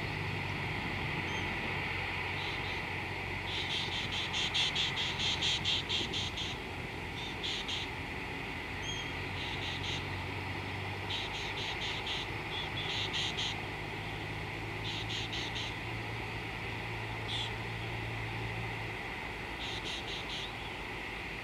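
Insects chirping in repeated high-pitched bouts of rapid pulses, about four a second, over a steady hiss of background insect chorus. A low steady hum runs underneath and stops near the end.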